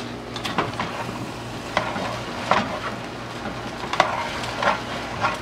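A spoon stirring and scraping rice in a metal pot on the stove, in irregular strokes about once or twice a second, over a steady frying hiss.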